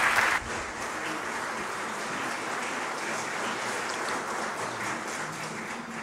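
Audience applauding, loud at first, then dropping about half a second in and holding steady.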